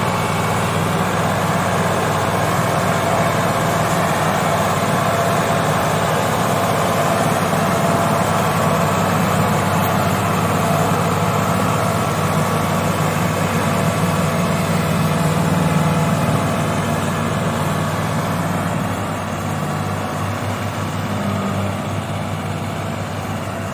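Ford 3610 tractor's three-cylinder diesel engine running steadily under heavy load as it tows a second tractor and a loaded sugarcane trolley by chain. The engine eases off a little near the end.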